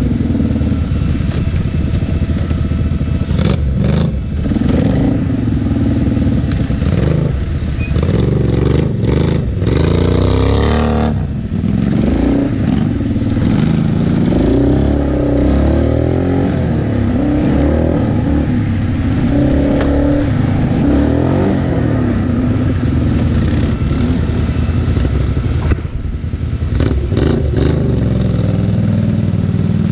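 Can-Am 400 XT ATV's single-cylinder engine running under load, its pitch rising and falling as the throttle is worked over rough ground, with a sharp rev-up about a third of the way in. Clattering and scraping knocks from the machine going over the terrain come through over the engine.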